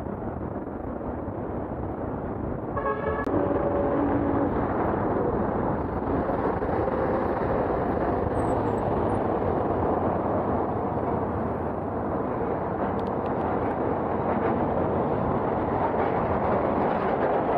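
Steady city traffic and road noise heard from a moving bicycle, with a short vehicle horn toot about three seconds in.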